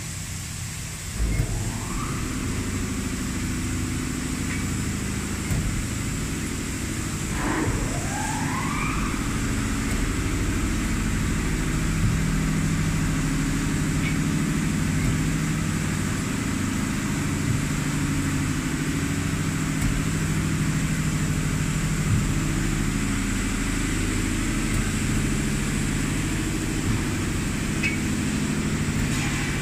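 Amada RG-100 hydraulic press brake's pump motor starting up, with a rising whine about a second in and again around eight seconds, then running with a steady low hum.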